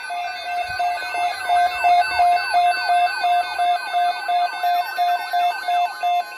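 Weather radio alert alarm sounding for an incoming severe thunderstorm watch: a pulsing beep about three times a second, overlaid with warbling pitch sweeps, that grows louder over the first two seconds.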